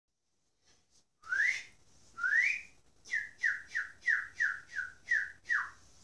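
Whistling in a birdlike call: two rising whistles, then a quick run of eight short falling notes, the last dropping lower.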